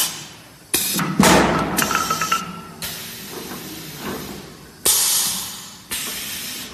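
Compressed-air hiss from a CNC wood lathe's pneumatic loading and clamping cylinders, in about five sudden bursts that each fade away. Knocks and clatter around the second and third bursts as a wooden blank is loaded between centres.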